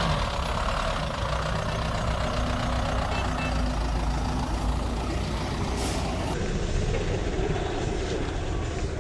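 Tata Sumo's diesel engine running steadily, a low even drone that neither rises nor falls.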